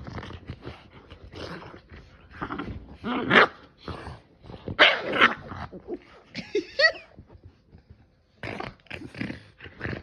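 Boston Terrier play-growling and barking in a string of rough, irregular bursts while wrestling with another dog, the loudest about three and five seconds in. There is a short high-pitched cry about seven seconds in, then a brief pause before the growling resumes.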